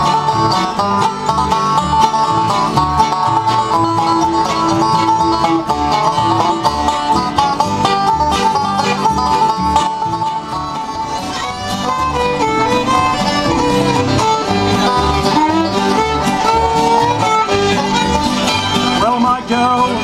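Live acoustic bluegrass band playing an instrumental passage: fiddle bowing the melody over banjo picking, acoustic guitar strumming and an upright bass keeping a steady pulse.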